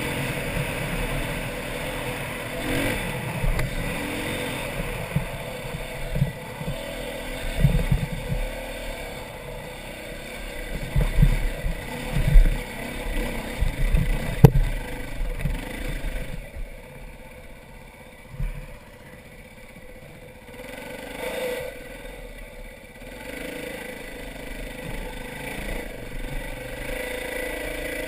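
Dirt bike engine running and revving as it climbs a rocky trail, with loud thumps and clatter through the middle. About sixteen seconds in it drops to a quieter, lower running for several seconds, then picks up again.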